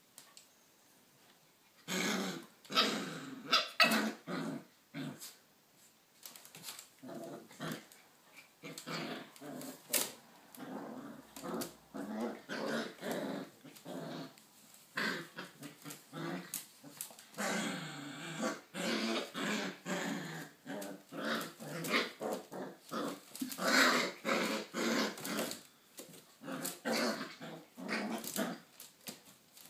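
Two Australian Shepherd puppies growling in bursts as they play-fight, starting about two seconds in and keeping on, with sharp clicks between the growls.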